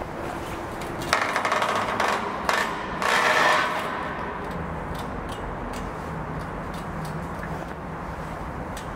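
Close scrapes, knocks and rustling from someone moving with a handheld camera over a stone floor, with a louder scraping rustle about three seconds in and scattered light ticks after it.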